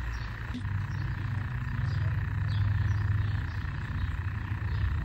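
Outdoor ambience: a steady low rumble under a constant hiss, with a few faint, short high chirps from birds.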